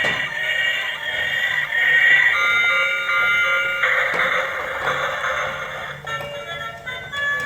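Bright electronic background music with a high, tinkling melody, and a stretch of hiss about four seconds in.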